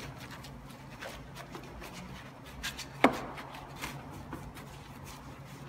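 Large detail brush scrubbing a wet engine bay, a run of short scratchy strokes agitating degreaser to lift the grime, with one sharper knock about three seconds in.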